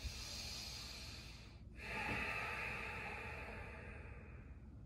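A man breathing deeply and audibly while holding a bridge pose, strained breath under the effort of the hold. There are two long breaths: one lasting about a second and a half, then after a short pause a louder, longer one of about three seconds.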